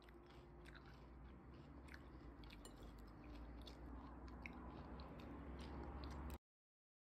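Near silence: quiet room tone with a few faint scattered clicks and ticks. It cuts off to dead silence shortly before the end.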